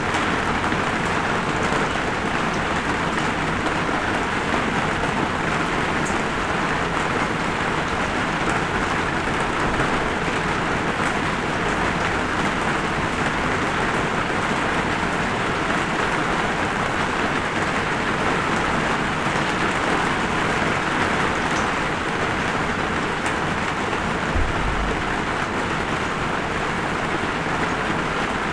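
Light rain falling steadily, an even hiss with the odd drop ticking.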